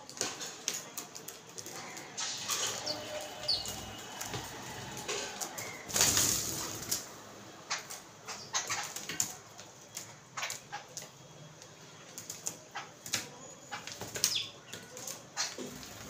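A flock of babblers feeding on a tabletop: frequent sharp taps of bills pecking at crumbs and feet on the hard surface, and a loud flurry of wingbeats about six seconds in as several birds fly up. A few short high calls are heard here and there.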